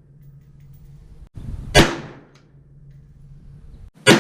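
Two AR-15 rifle shots about two and a half seconds apart, the second near the end, each a sharp crack with a short fading tail.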